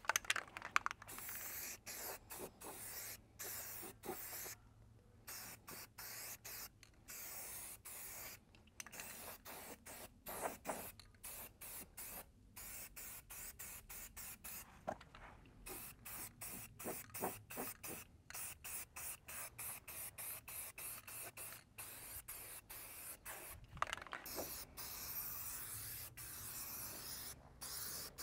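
Aerosol spray can of Rust-Oleum Professional primer hissing in many short bursts with brief pauses between them, as primer is sprayed onto bare sheet metal.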